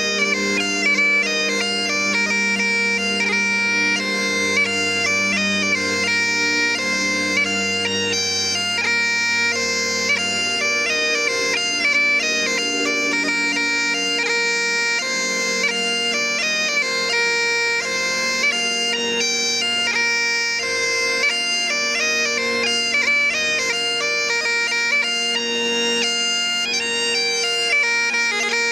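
Highland bagpipes playing a tune: the drones hold steady underneath while the chanter moves quickly from note to note.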